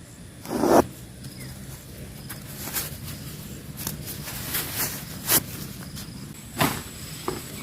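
Irregular footsteps and handling noises, a string of separate rustles and knocks with the loudest about a second in. Behind them a faint, high, short chirp repeats roughly once a second.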